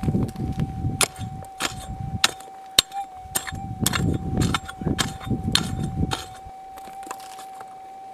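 Pick striking stony ground again and again, about two blows a second, stopping about three-quarters of the way through, with wind rumbling on the microphone. Underneath, the Minelab GPX4500 metal detector's threshold tone hums steadily.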